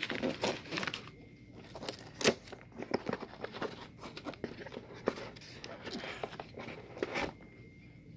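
Handling noise from a handheld gimbal stabilizer being unstrapped and lifted out of its foam-lined carrying case: a hook-and-loop strap ripped open near the start, then irregular clicks, knocks and rustles of plastic and fabric.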